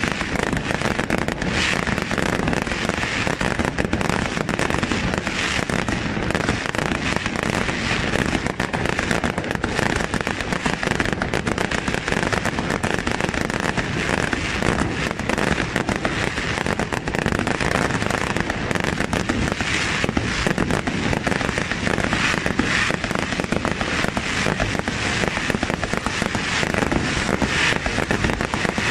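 Fireworks display: a dense, unbroken barrage of cracks and pops from many shells and comets fired at once, holding steady with no pauses.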